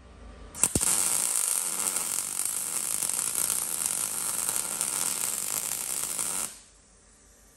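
MIG welder arc running a weld on a joint in a steel roll-cage tube: a steady crackling hiss that starts with a sharp click just under a second in and cuts off after about six seconds.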